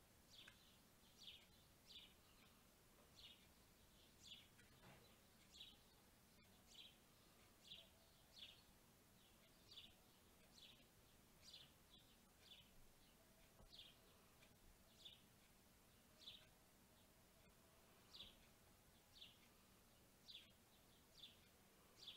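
A bird chirping over and over, short high notes that drop in pitch, about one a second, faint.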